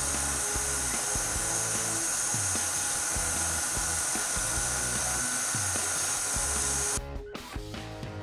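KitchenAid stand mixer motor driving the pasta roller attachment, a steady whine, as a sheet of pasta dough is fed through the rollers. It cuts off abruptly about seven seconds in, with background music playing under it and on after it.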